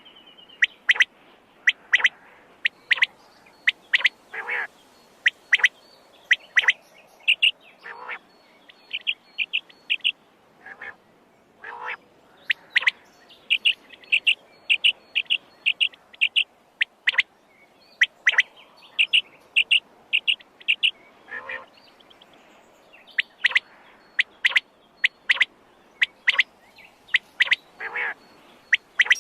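Quail calling over and over: short, sharp call notes, many in quick runs of several notes, with lower calls mixed in between.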